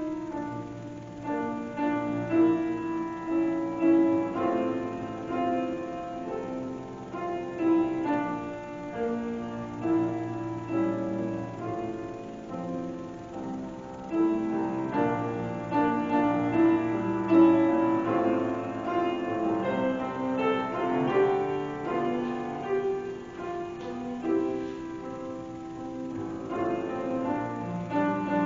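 Solo piano music played at a moderate pace, with many overlapping notes and chords.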